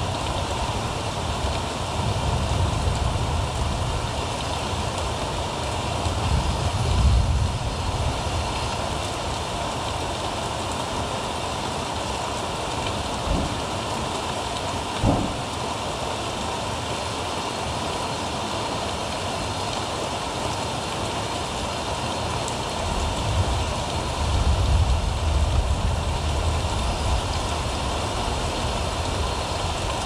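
Steady rain hiss, with a low rumble that swells about a quarter of the way in and again near the end. A single short knock about halfway through.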